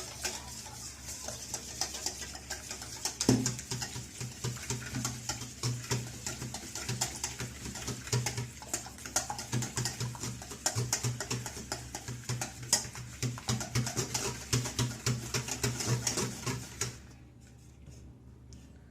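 Hand whisk beating eggs in a bowl: fast, rhythmic clicking of the wire tines against the bowl, which stops about two seconds before the end.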